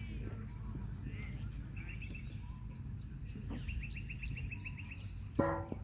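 Birds calling outdoors: scattered high chirps, a quick run of about ten short notes a little past halfway, then one louder, harsher call near the end, over a steady low outdoor rumble.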